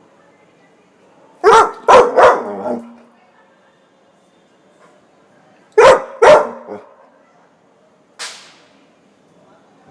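Labrador dog barking close by to be let back in the house: three loud barks in quick succession, then a pause and two more. A short hiss-like noise follows near the end.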